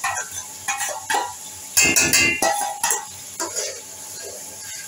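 A metal spoon scraping and clinking against a bowl and an aluminium pot as a spice mixture is scraped in and stirred, with clinks and scrapes busiest about two seconds in. Onions frying in ghee give a light sizzle underneath.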